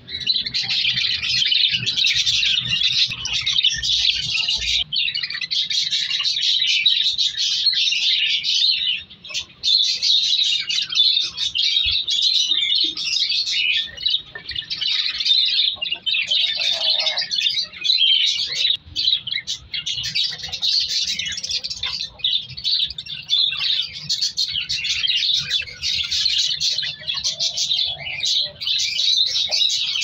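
A budgerigar colony chattering: many budgies' dense, continuous warbling chirps, with a brief lull about nine seconds in.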